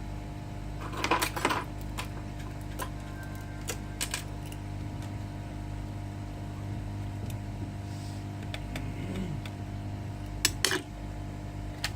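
A few sharp clicks and taps of small tools on a smartphone's casing as it is pried open, over a steady low hum.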